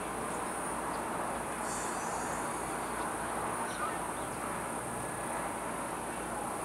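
Steady outdoor background noise: an even hiss with a faint, constant high-pitched band above it.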